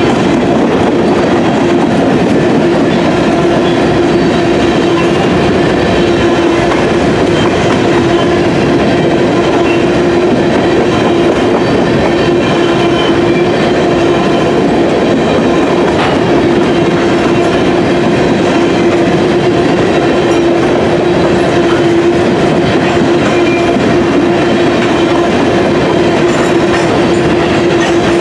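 Covered hopper cars of a freight train rolling past: steady clatter and rumble of steel wheels on the rails, with a steady humming tone running through it.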